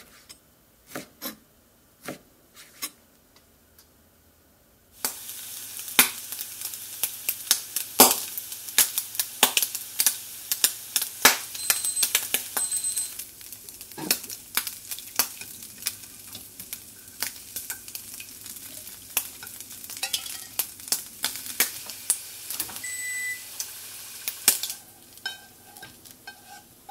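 A kitchen knife cutting bacon into strips on a wooden cutting board, a handful of sharp knocks. Then bacon sizzling in a frying pan, with chopsticks clicking and tapping against the pan as the strips are turned, and a few short beeps.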